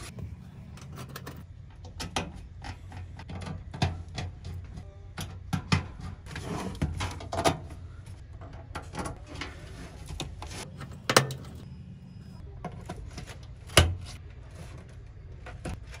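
Irregular clicks, knocks and rattles of PC parts being handled, screwed in and cable connectors plugged into the motherboard, with sharper clicks about eleven and fourteen seconds in, over a steady low hum.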